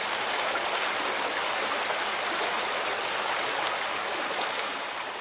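Common kingfisher giving four short, shrill, high whistled calls, each dropping slightly in pitch, the loudest pair close together near the middle, over the steady rush of a stream.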